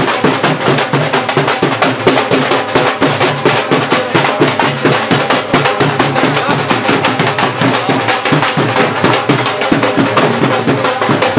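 Drums, most likely dhol, beating a fast, steady dhamal rhythm of densely packed strokes.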